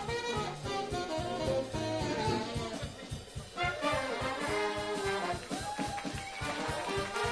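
Live big band playing swing jazz: saxophone, trumpet and trombone sections over a steady rhythm-section beat. A louder brass passage with bending notes comes in about halfway through.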